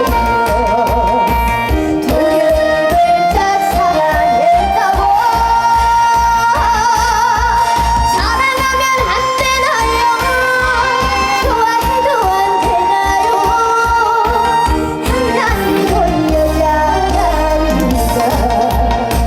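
A girl singing a trot song with vibrato over a backing track with a steady beat.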